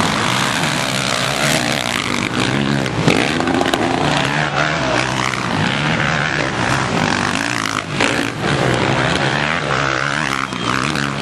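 Motocross bike engines revving up and down as the bikes race along a dirt track, with pitch rising and falling repeatedly.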